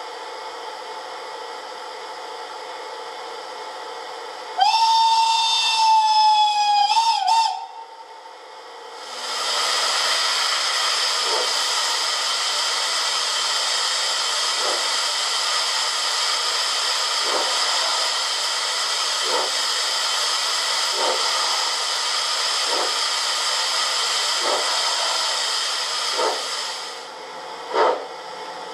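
Sound system of a gauge 1 BR 91 steam locomotive model, heard through its loudspeaker: a steam whistle blast about five seconds in, falling slightly in pitch and ending in a warble. Then a long steady steam hiss runs for about eighteen seconds and stops, and a single exhaust chuff follows near the end.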